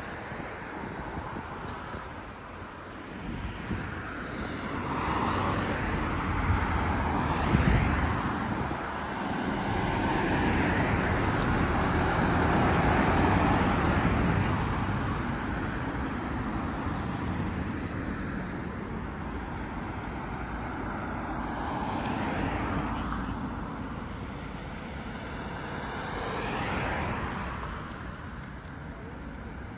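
City road traffic: vehicles passing one after another, each swelling and fading away, with the loudest passes in the first half.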